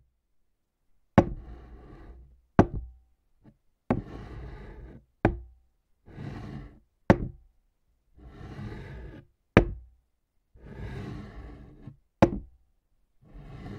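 Experimental electroacoustic sound piece: sharp, ringing knocks every two seconds or so, alternating with swelling rushes of noisy sound. Each part cuts off abruptly into dead silence.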